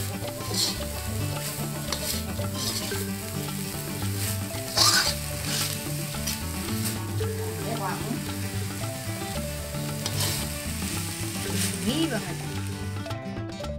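Shredded chicken sizzling in a wok as it is stir-fried, with a metal spatula scraping and tossing it against the pan every second or so, loudest about five seconds in.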